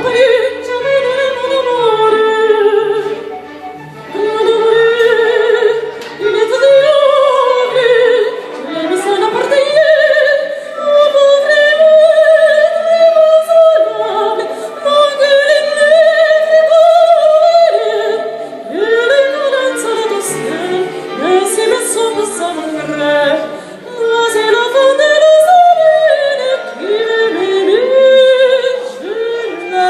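Operatic singing: a high voice with vibrato slides up into long held notes over steady accompaniment.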